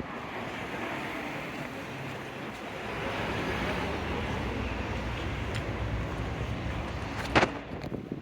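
Street noise with a car passing: a steady rumble and hiss of engine and tyres that swells a few seconds in and eases off. A single sharp knock near the end.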